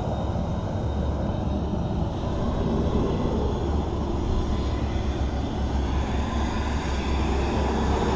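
Turbine aircraft engines running on an airport apron: a steady thin high whine over a continuous low rumble, with a whine rising in pitch near the end.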